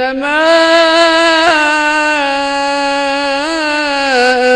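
A man reciting the Quran in a melodic chant, drawing out the word "innama" as one long held note with small turns in pitch.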